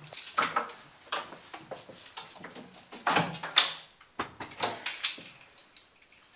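A front door being handled: a string of clicks and knocks from the latch, handle and keys as it is opened and shut, the loudest knocks about three seconds in.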